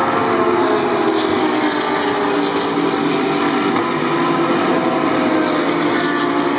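A pack of GT3 race cars driving past and away, the engine notes of several cars overlapping at a steady loudness.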